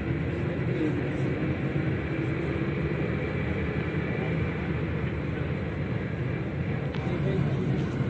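Inside a city bus on the move: steady engine and road noise heard through the passenger cabin.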